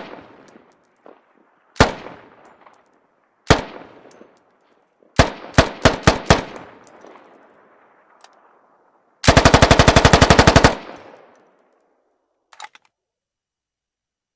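AKS-74U carbine firing 5.45×39mm: single shots a couple of seconds apart, then a quick string of about five shots, then a fully automatic burst of about a second and a half, each shot trailing off. Faint clicks near the end.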